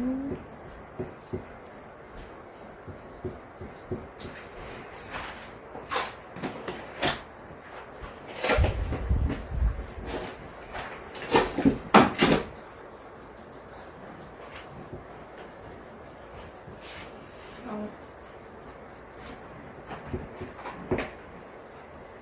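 An eraser rubbing on drawing paper in short strokes, removing pencil guide lines from a finished sketch. The strokes come in scattered runs and are loudest about halfway through.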